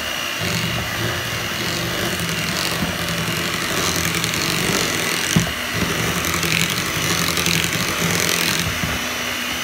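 Electric hand mixer running steadily, its beaters churning through boiled sweet potatoes with butter and sugar in a ceramic bowl, with one sharp knock about halfway through.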